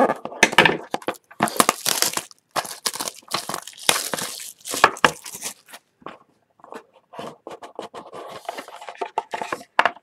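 Plastic shrink-wrap being picked at, torn and crinkled off a cardboard trading-card box: a dense run of sharp rustling bursts for about six seconds, then softer, sparser crinkling.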